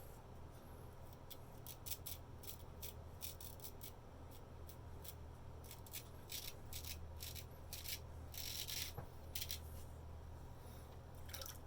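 Straight razor scraping through lathered stubble on the neck in short, repeated strokes, each a brief rasp, coming irregularly and more closely together a little past the middle.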